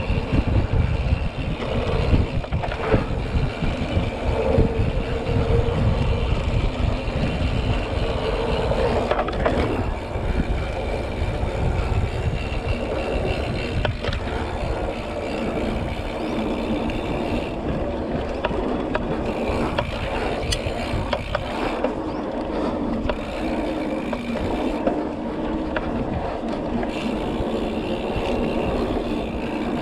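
Mountain bike ridden along a dirt trail: wind rumbling on the microphone, tyres rolling and scraping over the ground, and the bike rattling over bumps, rougher in the first half.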